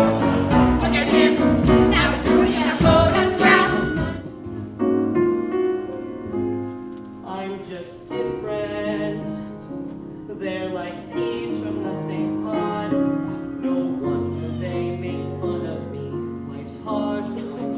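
Stage-musical song with singing voices and instruments: loud and busy for about the first four seconds, then lighter, with voices carrying a melody over sustained accompaniment.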